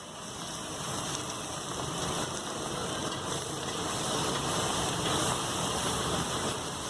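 Metal spatulas scraping and clattering on a large flat griddle (tawa) as a heap of fried rice is tossed and stir-fried, a steady rattling scrape with the hiss of frying.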